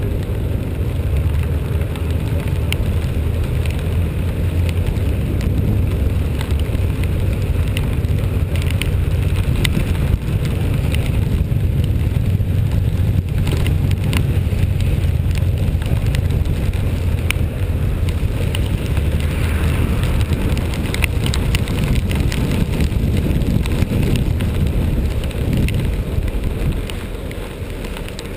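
A vehicle travelling in the rain: a loud, steady low engine and road rumble, with scattered raindrops ticking against the microphone. The rumble eases slightly near the end.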